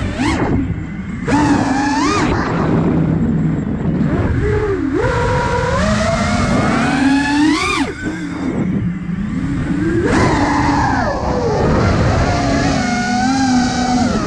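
A 5-inch FPV quadcopter's brushless motors whining, the pitch swooping up and down with the throttle. Several sharp rising surges are heard, the steepest near the eight-second mark, which then drops away suddenly. A rushing noise runs underneath.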